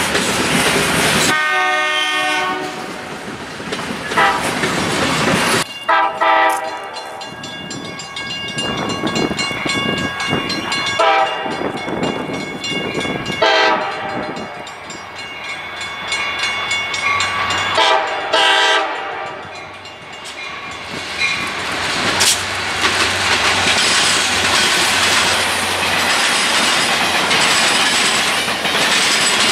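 A freight train's cars roll past for a moment. Then the horn of an approaching diesel locomotive sounds several long blasts and a short one. A passenger train then rolls past close by, its wheels clicking over the rail joints.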